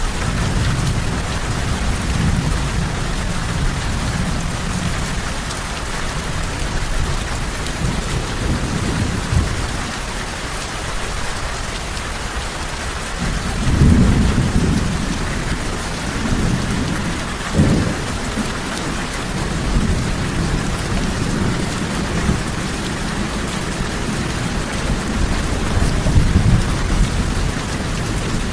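Steady heavy rain with low rolling thunder underneath, swelling louder a few times; the strongest rumble comes about halfway through, with another a few seconds later.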